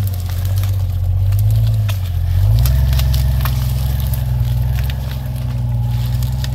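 Off-road vehicle's engine running, its pitch wavering and then rising a little about two and a half seconds in before holding steady, with scattered sharp clicks over it.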